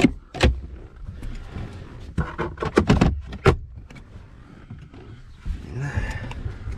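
Hard plastic clacks and knocks of hands rummaging in a car's centre-console cubby and cabin trim, with a cluster of sharp clacks between about two and three and a half seconds in.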